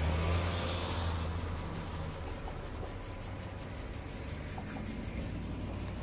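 Low engine hum of a car driving away along the road, strongest in the first two seconds and easing off to a quieter steady low drone.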